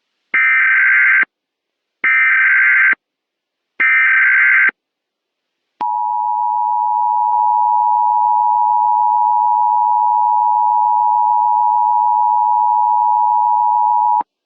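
Emergency Alert System tones: three short bursts of screeching data (the SAME header that encodes the alert), then a steady two-tone attention signal lasting about eight seconds. They open a National Weather Service flood warning.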